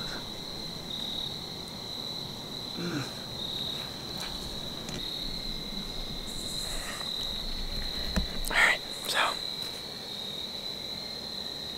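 Insects in the woods chirping in a steady, continuous high-pitched trill. Two short soft noises stand out about eight and a half and nine seconds in.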